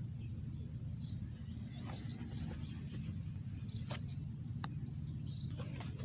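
Outdoor ambience: a steady low rumble with short, high bird chirps every second or two. Two sharp clicks near the middle as the pocket gear is handled.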